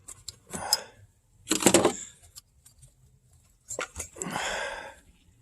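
Clinks and rustles of tools and engine parts being handled as the spark plug is pulled from the engine, in three short bursts, the loudest about a second and a half in.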